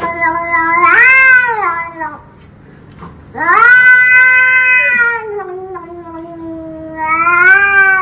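Grey cat meowing in long, drawn-out yowls: one call that rises in pitch about a second in and fades by two seconds, then after a short pause a second long call that rises again near the end.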